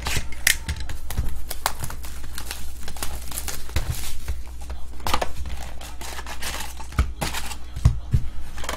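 Cellophane shrink wrap crinkling and tearing as it is stripped off a sealed trading-card hobby box, then the box opened and the wrapped card packs handled, with a few light knocks. A low steady hum runs underneath.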